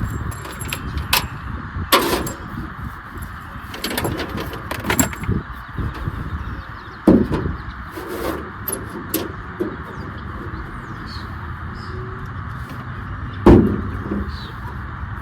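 Clicks, rattles and knocks from hands working in a car's trunk and interior while routing a coax cable, with two louder thumps, one about seven seconds in and one near the end, over a steady hiss.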